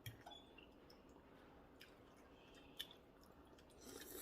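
Near silence with faint eating sounds: a few soft, brief clicks and squishes of chewing and handling food.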